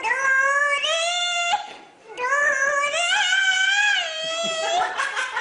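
A small girl singing in a high child's voice, holding long drawn-out notes: one phrase that rises at its end, a brief breath, then a longer note that wavers up and down.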